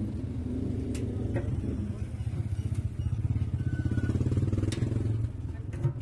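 A low, steady engine-like rumble with a fast pulse, the loudest sound, with a few light clicks of a screwdriver against a metal fitting in a washing-machine tub.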